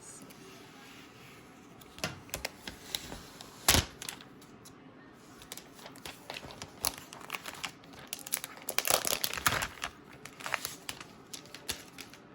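Plastic wrap being peeled and crinkled off a new iPad, a run of irregular crackles and sharp clicks.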